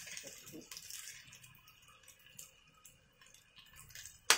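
Wooden spatula stirring and turning fried kway teow and yellow noodles in a steel wok, with soft scattered clicks and a faint sizzle. A single sharp knock comes near the end.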